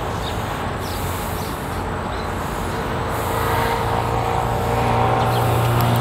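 An engine running steadily, its hum growing louder about halfway through.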